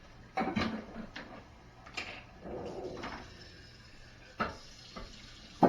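A few knocks and clatters of things being handled, such as a drawer or door, with sharp knocks near the end. The last one is the loudest.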